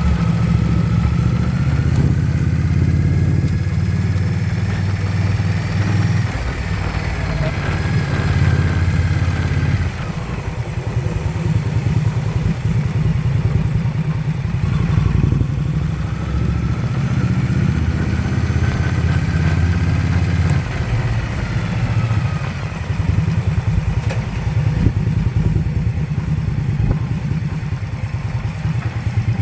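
Motorcycle engine running, with a thin whine above it that rises and then falls in pitch twice, each sweep lasting about ten seconds. This whine is the odd, undiagnosed noise the bike is making.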